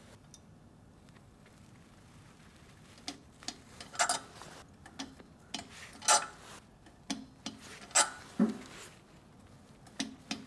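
Click-type torque wrench working a bolt nut at the base of a porcelain toilet. After about three seconds comes a scattered run of sharp metallic clicks and ratcheting. The louder clicks are the wrench breaking loose at its set torque of around 150 inch-pounds.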